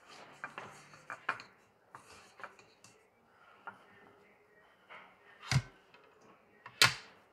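Light clicks and taps of hands handling skewered mozzarella and tomato pieces in a plastic bowl and on plates, with two sharp knocks in the second half, the second the loudest.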